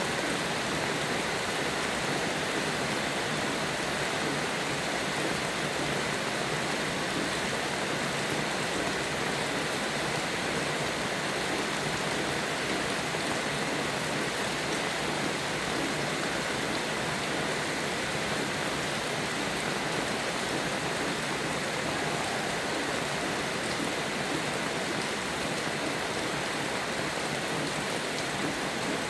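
Steady rain: an even, unbroken hiss of falling rain with no thunder or birdsong standing out.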